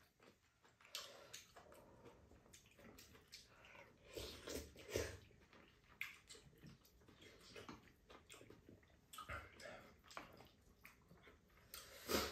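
Two people eating rice cake soup: soft slurps of broth and chewing, with small clicks of spoons against bowls. A louder slurp near the end.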